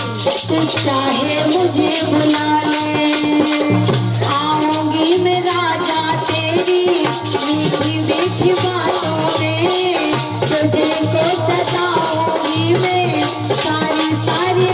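Live Indian folk stage music: a held melody line over drum, with a fast shaken, rattle-like percussion keeping an even beat. A woman's singing voice comes in as the melody starts to waver after the first few seconds.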